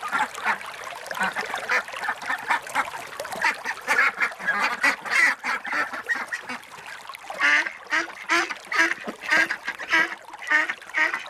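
A flock of ducks quacking, many short calls overlapping. From about seven seconds in, louder quacks stand out, coming about twice a second.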